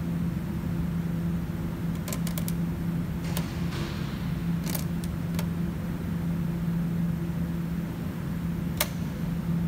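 Steady low machine hum, with a few sharp clicks of a screwdriver working at the fuel line fitting on a vehicle's fuel tank: a quick cluster about two seconds in, then single clicks spread through the rest.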